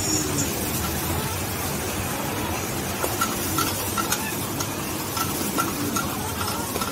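A large egg omelette frying in oil in a wide pan, sizzling steadily, while a metal spatula scrapes and taps at the pan's edge.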